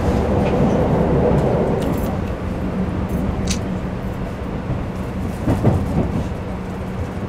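Keikyu New 1000 series electric train running, heard from inside a passenger car: a steady rumble of wheels on rail with a low hum.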